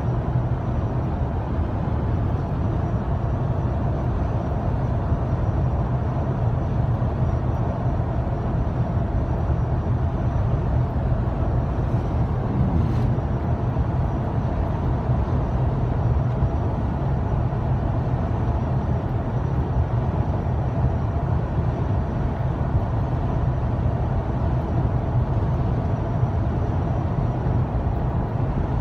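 Steady road and engine noise inside a moving car, a low, even rumble with no change in speed, and a faint brief tick about halfway through.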